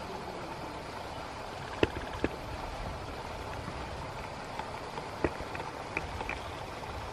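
Cooking oil poured in a steady stream from a plastic pouch into an aluminium kadai, with a few sharp clicks scattered through.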